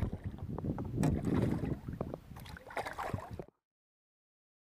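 Water splashing and sloshing beside a boat hull, with wind buffeting the microphone and scattered knocks of handling. The sound cuts off suddenly about three and a half seconds in, leaving dead silence.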